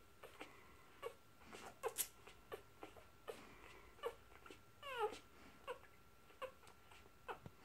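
Newborn puppies squeaking and whimpering while nursing: short, high, falling squeaks two or three a second, with a longer falling squeal about five seconds in.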